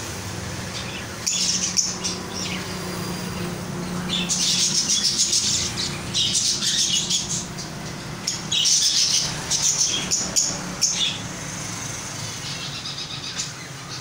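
Many caged birds calling together, with high chattering bursts of a second or two that come and go, over a steady low hum.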